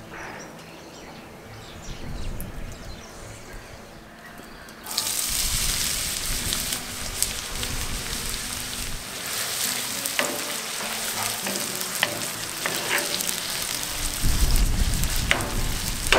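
Chopped onions sizzling in hot olive oil in a cast iron skillet. The sizzle starts suddenly about five seconds in, as the onions go into the oil, and runs on with scattered crackles. Near the end a wooden spoon stirs the pan with heavier knocks.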